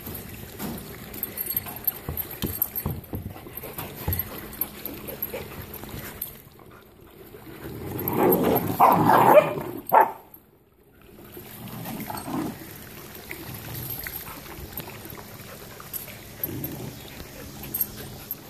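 Puppies milling right around the camera, with scuffling and handling knocks. A louder stretch of puppy yapping swells about eight seconds in and ends in a sharp knock near ten seconds.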